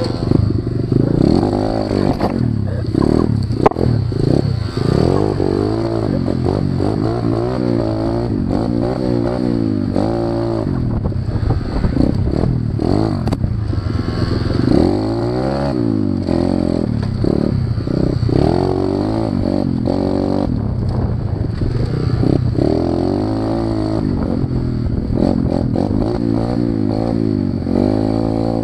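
Orion AGB29 125 cc pit bike's four-stroke single engine being ridden, revving up and down over and over, with its choke left on. A sharp click about four seconds in, and clattering from the rough trail.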